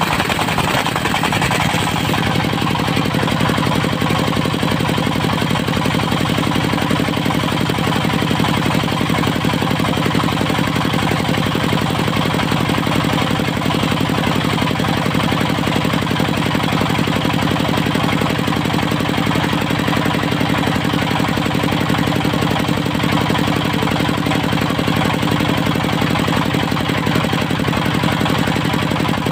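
Diesel engine of a portable circular sawmill running steadily. A higher hiss over the engine fades about two seconds in.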